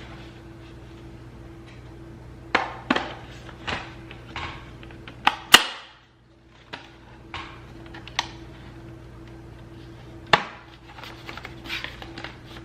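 Scattered plastic clicks and knocks from handling a Coleman rechargeable camping lantern that will not switch on, over a steady low hum. The sharpest click comes about halfway through.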